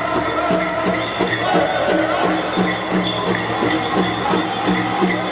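Powwow drum group singing over a big shared drum beaten in a steady, fast rhythm, with the dancers' bells jingling along.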